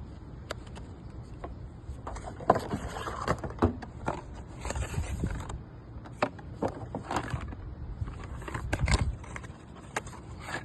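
Handling and unpacking noise: irregular rustling, scraping and clicking of packaging and small accessories being taken out, busiest in two spells, not the vacuum running.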